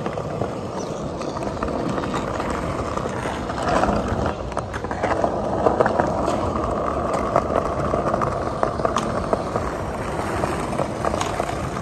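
Skateboard wheels rolling over stone paving tiles: a steady rumble broken by short sharp clicks as the wheels cross the tile joints.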